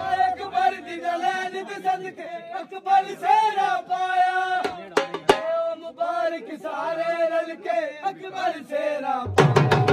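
Men singing a chant-like melody while the dhol drum pauses, with a couple of sharp knocks around the middle. The dhol beat comes back in loudly near the end.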